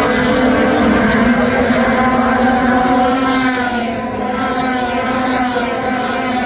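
Several race car engines running at high revs on a short paved oval. Their pitches overlap and dip slightly as the cars pass.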